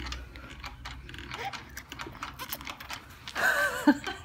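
A five-month-old baby gumming a rice cracker: small wet clicks and smacks, then a short high-pitched squeal from the baby about three seconds in.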